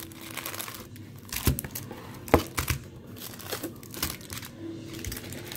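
Foil trading-card packs crinkling and rustling as they are pulled out of a cardboard wax box, in irregular crackles and clicks, the sharpest about two and a half seconds in.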